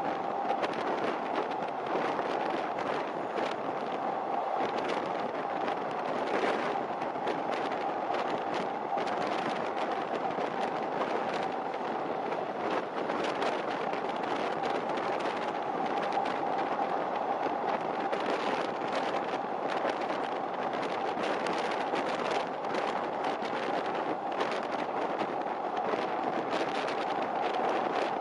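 Long-distance train running at speed: a steady rush of wheels on rail with a constant whine, broken by many small sharp clicks.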